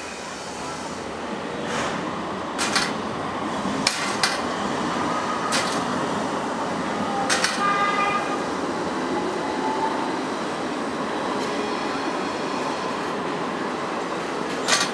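Street tram running along its rails: a steady rumble that swells in the first two seconds, with scattered sharp clicks and a brief squealing tone about seven seconds in.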